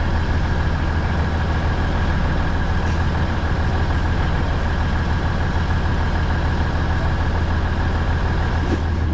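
The Batara Kresna railbus's diesel engine idling steadily with a deep low hum while the railbus stands at a station.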